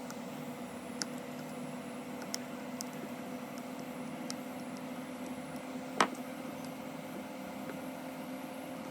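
A steady electrical hum with a few light clicks and taps of small tools on phone parts, and one sharper click about six seconds in.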